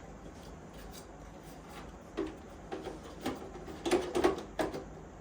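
A 3D-printed plastic fan bracket being pushed into place in a metal server chassis: a few short, sharp knocks and clicks about two seconds in, then a quick cluster of them near four seconds.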